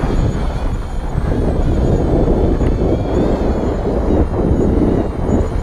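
Wind buffeting the microphone in a loud, steady rumble, with the faint wavering whine of a small FPV racing quadcopter's electric motors above it.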